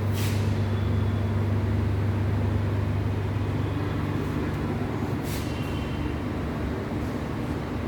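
A steady low mechanical hum over a noisy background, with two brief hissing swishes, one at the start and one about five seconds in.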